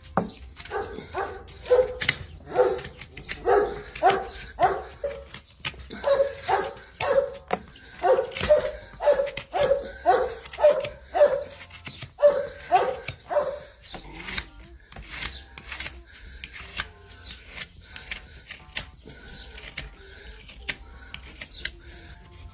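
A dog barking over and over, about two barks a second, stopping about two-thirds of the way through; faint clicks and light scraping follow.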